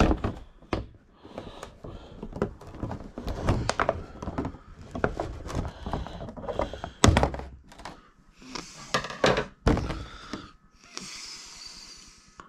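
Hands pulling toy figure parts out of plastic packaging: a string of small plastic clicks, knocks and scrapes, with a longer crinkly rustle near the end.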